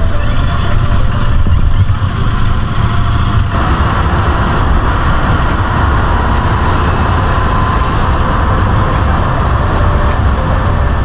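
Motorcycle riding at speed: wind rushing over the microphone over the steady drone of a Royal Enfield Continental GT 650's parallel-twin engine.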